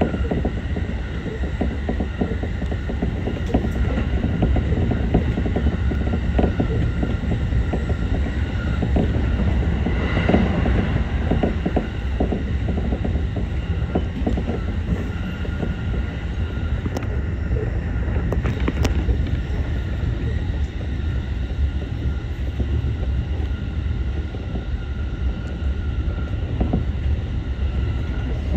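Keihin-Tohoku Line electric commuter train running along the line, heard from inside the front car. A steady low rumble of wheels on rail comes with frequent clicks over rail joints, and a faint steady whine sits above it.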